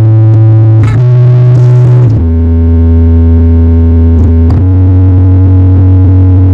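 Very loud synth-heavy music played through a large sound-system rig of subwoofers and line-array speakers, dominated by long held bass notes. The bass drops to a lower note about two seconds in and moves back up at about four and a half seconds.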